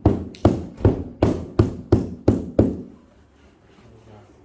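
A quick run of about eight sharp knocks, two to three a second, stopping about three seconds in: a carpet fitter's hand tool fixing a stair runner down across a tread, worked from the centre outward.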